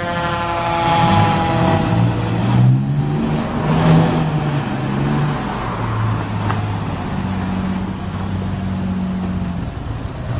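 Fire engine's diesel engine pulling away under acceleration. Its pitch climbs and drops back several times as the automatic transmission shifts up through the gears.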